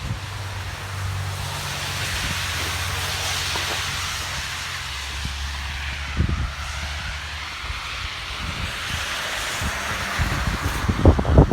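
Wind blowing in a steady hiss that swells and fades, with a low hum underneath. Gusts buffet the microphone near the end.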